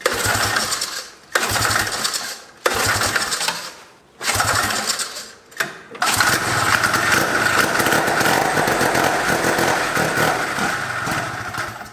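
Arctic Cat Panther's rotary 303 Wankel snowmobile engine catching for about a second at a time, five times over, then running steadily for about six seconds before it stops. Its owner puts the failure to keep running down to it not getting fuel.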